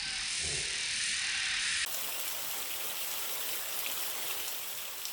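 Rushing water of a stream, a steady hiss with no rhythm or tone, changing suddenly about two seconds in to a fuller rush of water.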